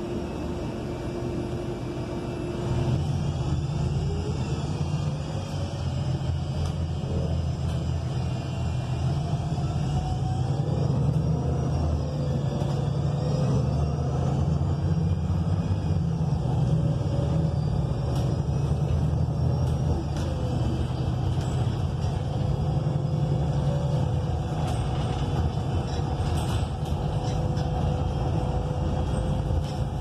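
Transit bus's Cummins Westport L9N natural-gas engine and Voith automatic transmission heard from inside near the rear: the low engine rumble rises about three seconds in as the bus pulls away, then carries on under load, with a faint whine gliding up and down through the gear changes.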